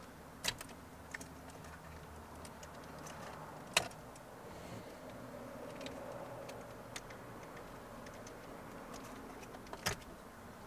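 A handful of sharp plastic clicks and light rattles as wiring connectors are unplugged from the switches on a removed dashboard trim panel, the loudest click about four seconds in, over a faint steady background.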